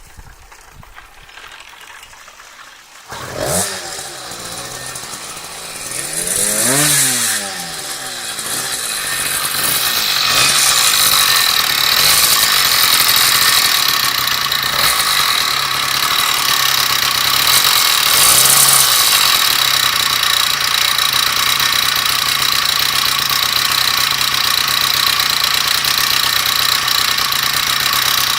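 Small two-stroke motorized-bicycle engine, the MPG engine built on a Super Rat bottom end, firing up about three seconds in after a few quiet clicks. It revs up and back down briefly, then settles into steady idling.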